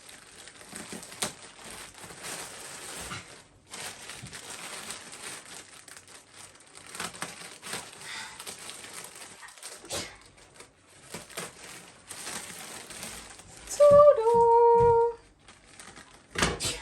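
A plastic shipping mailer being cut and torn open and handled, crinkling and rustling in irregular bursts. A little before the end a short, loud two-note voice sound, the second note lower, cuts across it.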